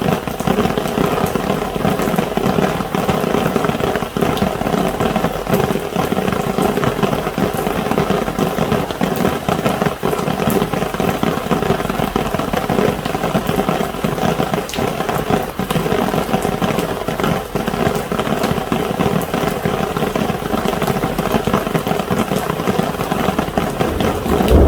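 Rain pattering steadily on an umbrella, a dense run of irregular drops.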